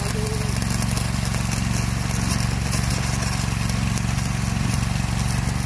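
Steady engine drone, like a generator set running, over the even hiss and crackle of an automated welding torch working along a rail.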